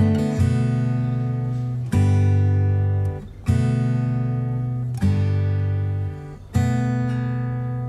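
Background music: acoustic guitar strumming, a new chord struck about every one and a half seconds and ringing out between strokes.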